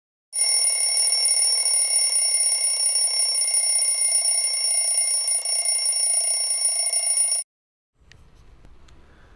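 A bell ringing continuously and loudly, a steady high ring that is cut off suddenly about seven seconds in. Faint room sound follows.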